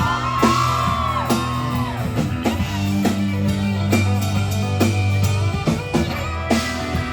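Live country band playing an instrumental passage: guitar with bending, sliding notes over steady bass and drums.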